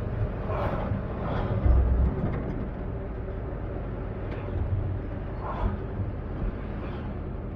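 Engine and road noise inside a moving vehicle's cabin, a steady low rumble, with a heavier low thump about two seconds in.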